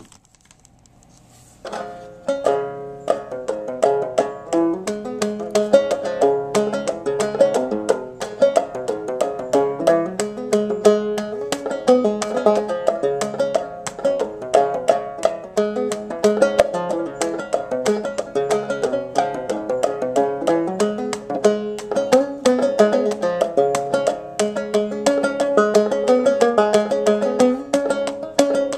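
Banjo being picked: a quick, continuous run of plucked notes that starts about two seconds in and carries on as a tune. The banjo is newly strung, its strings still stretching.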